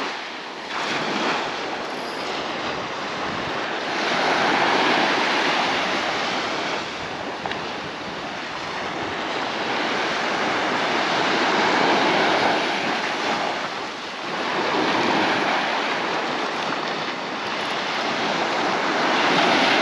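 Small surf breaking and washing up a sandy beach, a rushing noise that swells and fades every few seconds.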